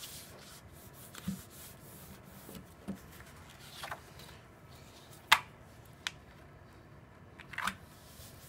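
Baryta photographic paper and a cardboard guide being handled on a table as the paper's edges are creased up: soft rubbing and sliding with a few sharp paper taps and crackles, the loudest about five seconds in.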